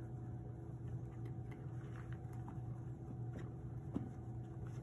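Steady low room hum, with a few faint ticks and rustles from an elastic emergency bandage being threaded into its plastic pressure bar.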